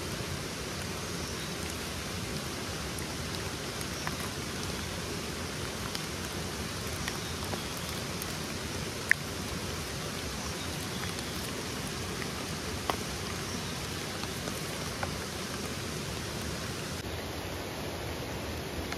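A steady, even hiss of forest ambience with scattered faint clicks, the sharpest about nine seconds in.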